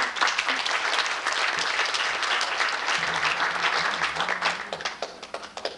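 Audience applauding, a dense patter of hand claps that tapers off near the end.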